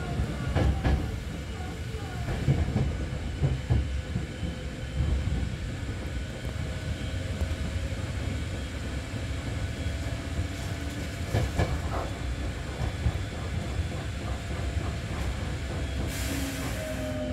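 Hankyu 6000 series electric train running, heard from inside the front of the car: a steady low rumble of wheels on rail with scattered clicks over rail joints and a faint steady whine. A short burst of hiss comes near the end.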